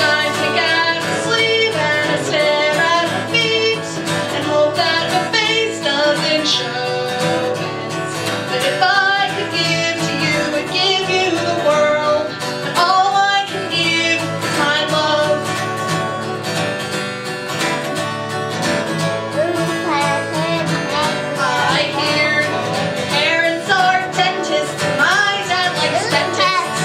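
A song performed live: a voice singing a melody over plucked guitar accompaniment.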